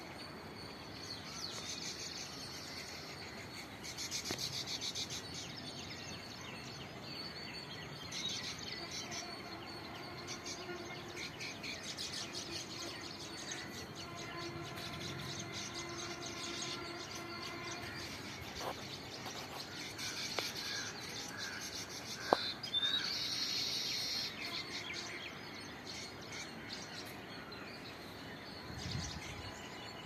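Baya weavers chirping in short scattered bursts over steady outdoor background noise. A sharp click sounds about two-thirds of the way through.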